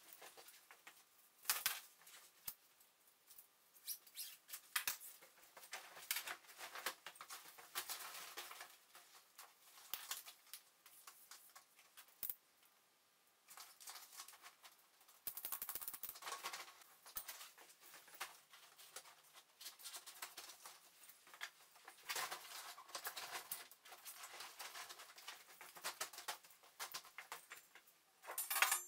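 Thin plastic of a garden kiddie pool rustling and crinkling in irregular bursts as it is pulled and folded by hand.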